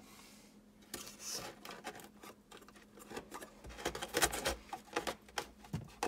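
Blue plastic electrical junction box scraping and knocking against the cut edges of a drywall hole as it is pushed in: a tight fit. An irregular run of scrapes and clicks, loudest about four seconds in.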